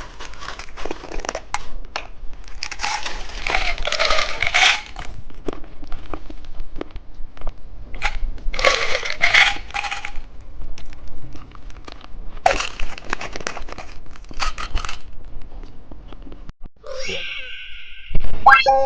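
Close-miked crinkling of plastic candy packaging in several bursts, with scattered taps and clicks as a baby-bottle candy is unwrapped and handled, and a louder, sharper sound near the end.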